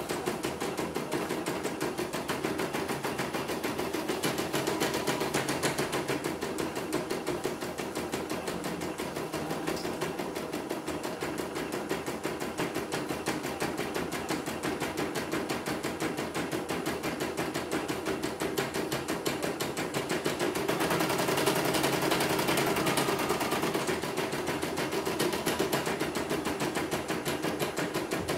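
CNY portable embroidery machine stitching a design, its needle bar clattering in a rapid, even rhythm as the hoop carriage steps the fabric along. It is a test stitch-out after repair of a machine that came in completely dead. The clatter gets a little louder for a few seconds about three-quarters of the way through.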